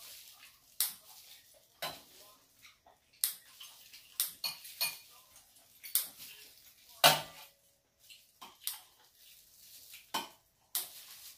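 Metal chopsticks, spoon and kitchen scissors clinking and tapping against a stainless steel bowl and tray in irregular, sharp clinks, the loudest about seven seconds in with a short metallic ring.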